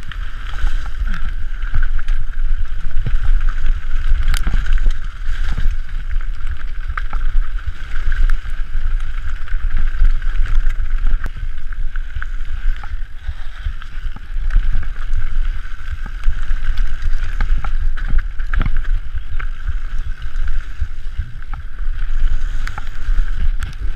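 Mountain bike riding fast down a rough dirt trail: a heavy rumble of wind on the microphone and tyres on the ground, with the bike rattling and knocking over bumps, roots and stones, and a steady high hum throughout.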